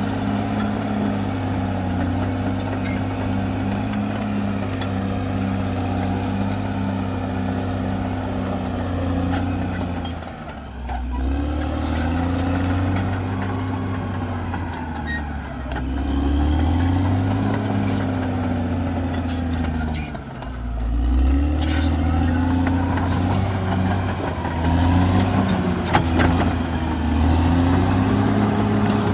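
CAT D6R XL bulldozer's diesel engine running under load. Its pitch drops briefly about ten seconds in and again about twenty seconds in, then climbs back each time. Sharp clicks and clanks are scattered through it.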